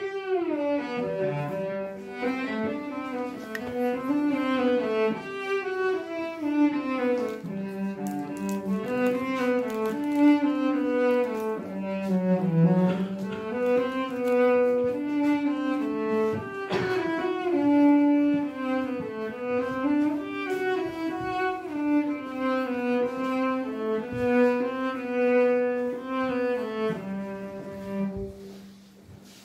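A cello bowing a melody of changing notes, played live in a hall, with one sharp knock about seventeen seconds in; the playing fades out near the end.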